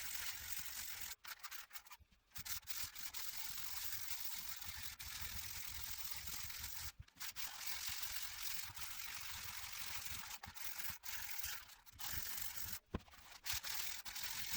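Abrasive paper being rubbed over the steel head of an old blacksmith's hammer, a steady dry scratching hiss broken by a few short pauses.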